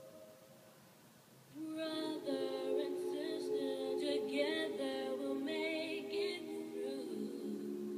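Boys' choir singing a cappella. After a quiet pause it comes in about a second and a half in with a held chord, and a solo boy's voice sings a moving melody over it.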